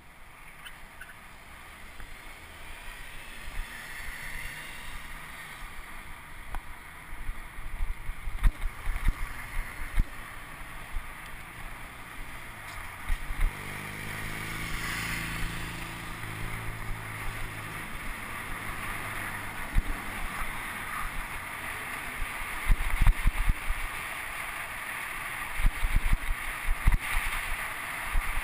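Wind on the microphone and road noise from a bicycle riding along a city street, with low thumps and jolts as it crosses rough pavement, more of them near the end. Around the middle a motor vehicle's engine runs close by for a few seconds.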